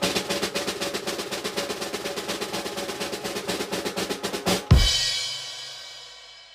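Snare drum roll of rapid, even strokes, ending about four and a half seconds in on a single cymbal crash with a low bass drum thump. The cymbal rings and fades away over about two seconds: the classic drum-roll-and-crash reveal sound effect.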